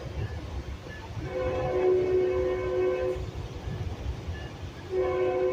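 Metrolink train's horn sounding two long blasts, a chord of several steady tones, the second starting near the end, over the low rumble of the moving train.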